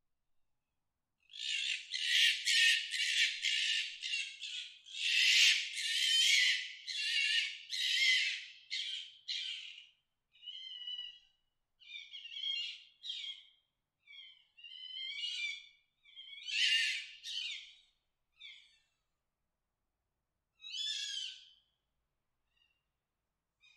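Fox calls of the mating season: a fast run of short, high calls, several a second, for about nine seconds, then separate calls and short bursts spaced a second or more apart, fading out about two seconds before the end.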